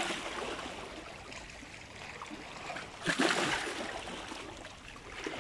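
Seawater washing against shoreline rocks, an even rushing sound with a louder wash about three seconds in.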